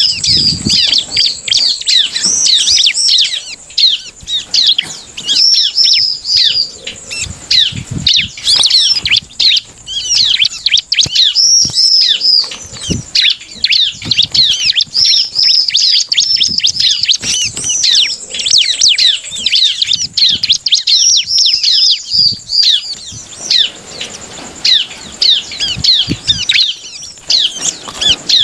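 Bar-winged prinia (ciblek) singing a fast, continuous run of high chirping notes, with short pauses between runs, while its wings flutter and thump in the cage.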